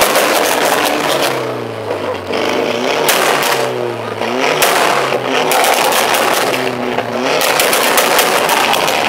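Car engine revved hard again and again, its pitch climbing and falling several times over a harsh exhaust noise, with sharp crackles between the revs.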